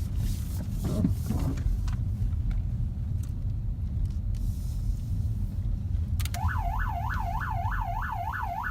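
Moving patrol car's low engine and road rumble, then about six seconds in its police siren switches on in a fast yelp, sweeping up and down about four times a second as it moves to pull a car over.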